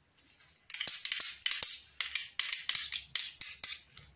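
A metal spoon clinking and scraping against a glass mixing bowl. There is a quick run of a dozen or so sharp, ringing strikes starting about a second in and lasting about three seconds, as paste is knocked off the spoon into the bowl.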